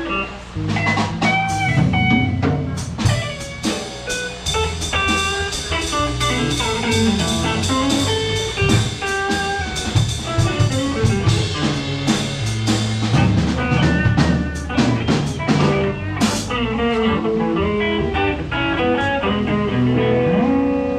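Live blues band playing a loud, steady groove of guitar and drums during a sound check.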